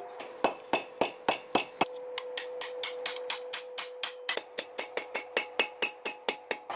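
Blacksmith's hammer striking metal on an anvil in a rapid, even run of blows, about four a second, with a steady ringing tone under them.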